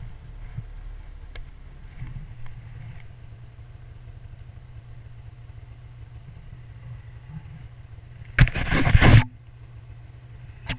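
Arctic Cat Mountain Cat snowmobile's two-stroke engine running at a steady low drone while the sled rides through deep powder. About eight seconds in there is a loud, noisy scrape lasting under a second as the sled pushes through a snow-laden tree branch.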